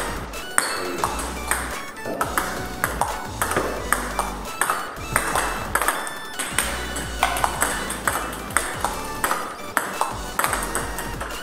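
Table tennis rally: a ping-pong ball clicking off the bats and bouncing on the table in a quick, steady series of sharp taps, one bat faced with Speedy P.O. short-pips rubber. Background music with a steady bass runs underneath.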